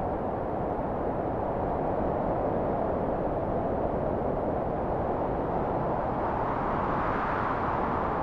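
Wind blowing: a steady rushing noise that swells gently and keeps on without a break.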